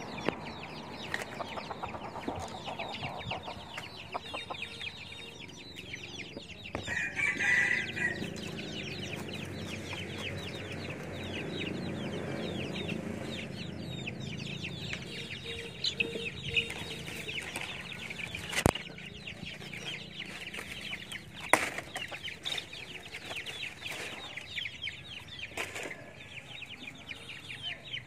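Wild chickens (red junglefowl) clucking, with a louder, higher call about seven seconds in and a few sharp clicks later on.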